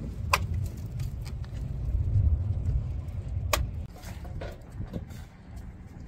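Fire burning in a sunken clay oven (tandoor), a steady low rumble of flames with two sharp cracks. About four seconds in it gives way to quieter crinkling of aluminium foil being opened around roasted meat.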